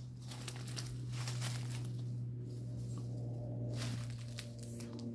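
Dry leaves and twigs crackling and rustling as someone moves through forest undergrowth, over a steady low hum.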